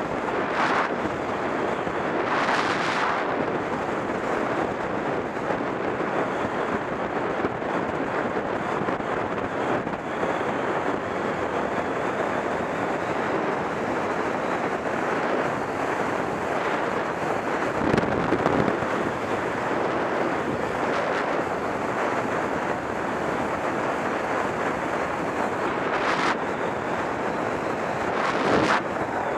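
Wind rushing over a helmet camera's microphone as a road bicycle rides at speed, a steady rush with stronger gusts a few seconds in, about two-thirds through, and near the end.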